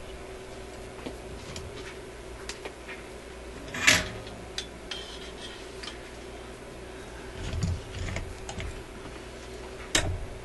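Hands handling wiring and small tools at a workbench: scattered light clicks and clinks, a louder clatter about four seconds in, a rustle of handling a few seconds later and a sharp knock near the end as the soldering iron is taken up. A faint steady hum runs underneath.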